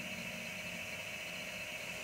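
HO-scale model locomotive's digital sound decoder playing a steady engine-running sound while the locomotive stands still.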